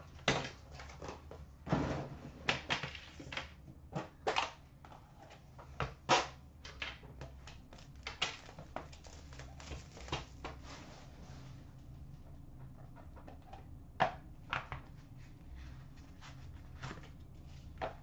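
Hands opening an Upper Deck The Cup hockey card tin and handling the pack and cards inside: scattered clicks and knocks from the metal tin and lid, with soft rustling of wrapper and cards.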